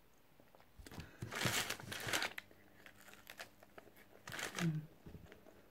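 Paper food wrapper crinkling in a few short bursts, with a brief low hum in the middle.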